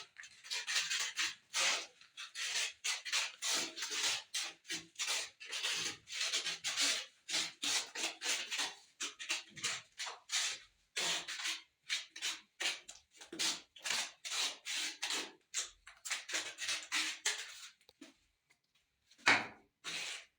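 A trowel scraping tile cement with quick, repeated strokes, about two to three a second. There is a short pause near the end, followed by one sharper, louder scrape.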